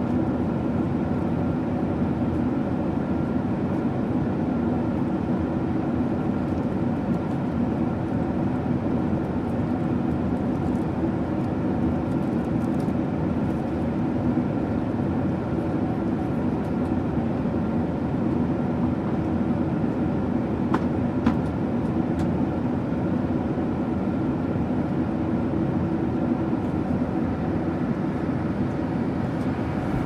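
Steady drone of an airliner cabin in flight: engine hum and rushing air. A faint click or two about two-thirds of the way through.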